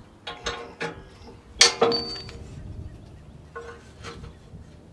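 Steel brush guard clanking against the front frame of a Kubota L4701 tractor as it is fitted into place: a handful of metallic knocks with a short ring. The loudest comes about a second and a half in.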